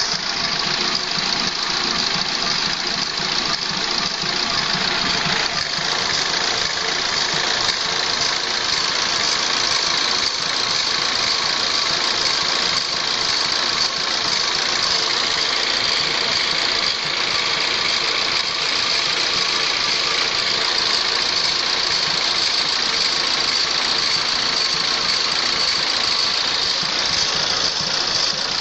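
Car engine idling steadily, with a steady high hiss over the engine noise. The owner suspects a vacuum leak.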